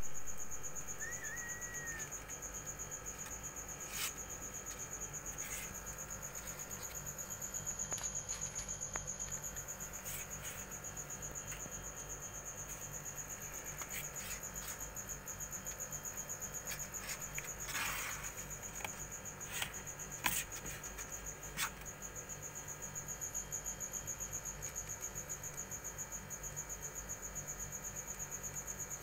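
A steady high-pitched insect trill runs throughout over a low steady hum. Now and then come short scratches and rustles as kittens move against the wicker basket, the loudest a cluster about two-thirds of the way through. One brief faint squeak comes about a second in.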